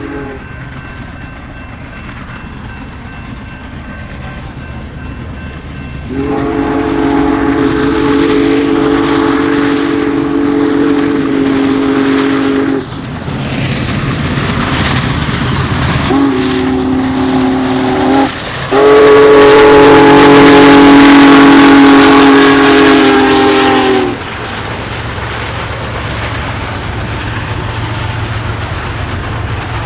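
Union Pacific Big Boy 4014 steam locomotive sounding its steam whistle in a chord: a long blast, a short one and another long one, over the steady rumble and rail clatter of the moving train. The last blast is the loudest, with a strong hiss under it.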